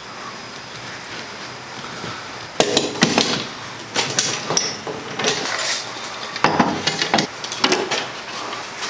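Metal bar clamps knocking and clattering against a pine panel and the workbench as they are set across a glue-up. A series of sharp knocks and rattles starts about two and a half seconds in and comes in clusters to the end.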